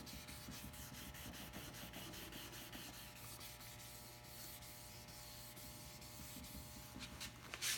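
Fine wet sanding: 3000-grit wet paper rubbed by hand over a soapy, wet varnished wooden hull in quick, short strokes. The strokes are densest in the first half and thin out later, with a steady low hum underneath.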